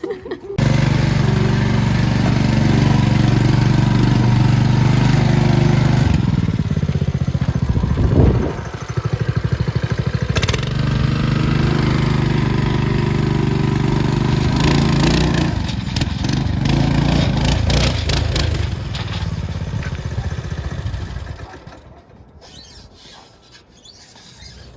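A motor engine running steadily, its pitch shifting briefly about eight seconds in, then dropping away about 22 seconds in.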